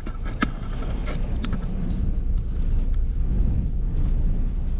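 Storm-force wind buffeting the microphone in a blizzard: a steady, heavy low rumble, with a few faint ticks in the first second and a half.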